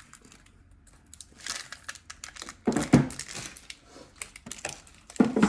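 Plastic packaging crinkling and rustling as computer parts and screw bags are handled, with two louder handling bumps, one about three seconds in and one near the end.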